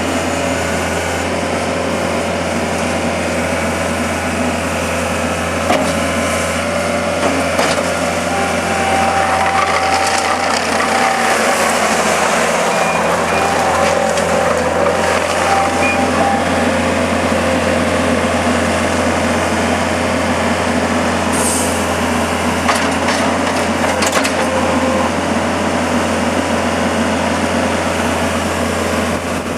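Takeuchi TL130 rubber-track skid steer loader's diesel engine running steadily as the machine is operated, with a steady higher whine for several seconds in the middle and a few clicks and clanks later on.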